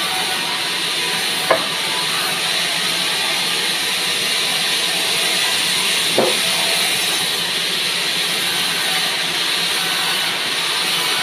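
Large sawmill band saw running steadily as its blade rips lengthwise through a pine log, with two short knocks, about a second and a half and about six seconds in.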